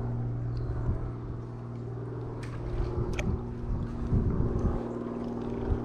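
Handling sounds while a smallmouth bass is unhooked over a landing net in a kayak: two sharp clicks in the middle and a cluster of dull knocks a little after four seconds, over a steady low mechanical hum.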